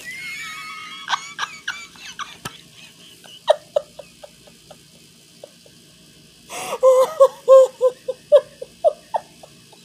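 A woman laughing, held back and breathy, in short bursts, with a high squeal at the start and a run of quick giggles about two-thirds of the way in: laughter at her own fright after being startled.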